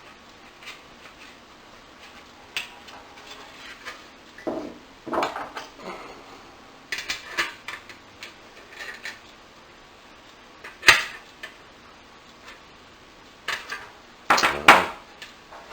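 Irregular clinks, clicks and knocks of small metal parts and tools being handled, with one sharp knock about eleven seconds in and a cluster of louder knocks near the end.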